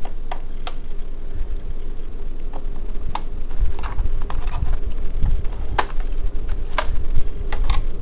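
Scattered plastic clicks and taps as an HP G62 laptop's plastic bottom access cover is pressed and seated back into place, with a screwdriver at its screws. Low rumbling handling noise sets in about a second and a half in.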